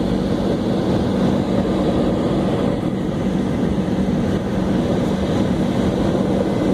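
Steady cabin noise of a McDonnell Douglas MD-88 climbing out after takeoff: its rear-mounted Pratt & Whitney JT8D-200-series turbofans at climb power give an even rushing drone with a low steady hum, heard from inside the cabin.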